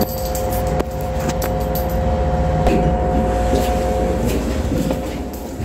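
Passenger lift cabin in travel: a steady low rumble with a held two-note hum, which dies away about four seconds in as the lift comes to a stop at the floor.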